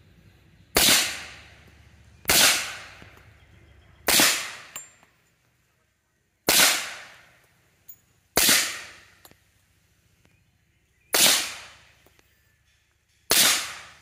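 Suppressed FN 45 pistol fired seven times, single shots about two seconds apart, each a sharp crack with a short echoing tail.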